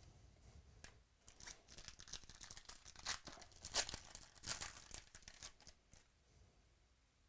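Foil trading-card pack wrapper being torn open and crinkled by hand, a run of crackling tears lasting about five seconds.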